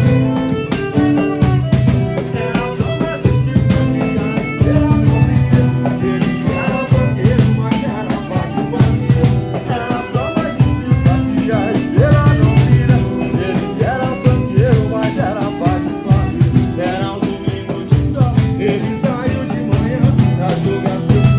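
A small band playing live, with a steady beat, bass notes, guitar and drums.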